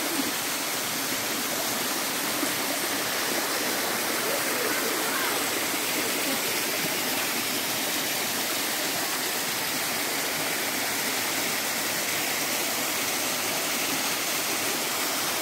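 Waterfall: a steady rush of falling water that holds even throughout.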